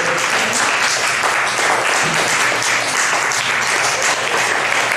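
Audience applause: many hands clapping steadily and densely.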